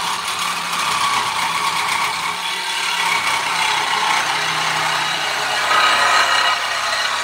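Small cordless reciprocating saw running steadily as its blade cuts through a steel bar.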